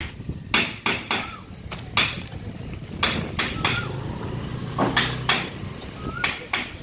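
About a dozen sharp, irregular clicks and knocks, a few close together, over a low background murmur.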